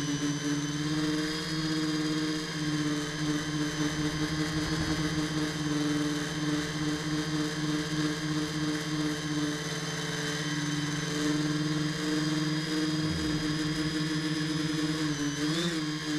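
X900 tricopter's three 750KV brushless motors and 10x4.5 propellers in flight, a steady droning hum from the airframe's onboard camera. The pitch holds nearly level, with a brief rise shortly before the end.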